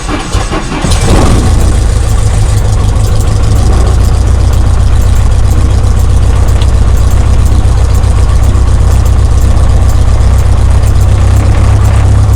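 Cessna 172K's four-cylinder Lycoming piston engine on its second start attempt after priming: uneven cranking and sputter that catches about a second in, then settles into a steady, loud idle.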